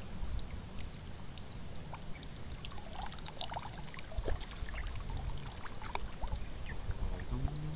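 Small splashes and dripping water from a hooked tilapia thrashing at the surface and being lifted out on a fishing pole, with scattered faint ticks.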